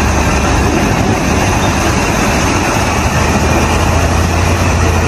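Heavy truck engine running steadily: a loud, even mechanical rumble with a strong low hum.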